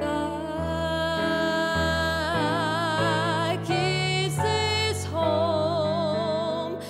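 Young female solo voice singing long held notes, several with wide vibrato, over chords on a digital piano.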